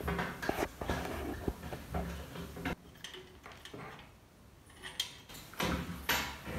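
Hands handling small plastic and metal parts of a panel board: short clicks and knocks as wires are pushed into the terminal block, then, after a quieter few seconds, more clicks as the miniature circuit breaker is turned over and a screwdriver is set to its terminal.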